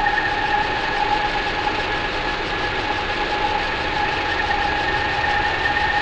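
Steady soundtrack drone: a dense, rumbling wash of noise with two high held tones sustained through it, unchanging in level.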